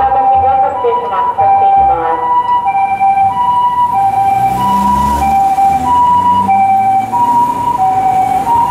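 Japanese ambulance siren sounding its two-tone hi-lo call, a higher and a lower tone alternating about once every half second as the ambulance drives past.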